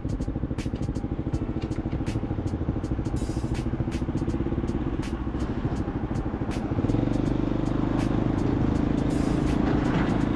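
Motor vehicle engine running steadily, with frequent sharp ticks. About seven seconds in a deeper, louder engine note takes over.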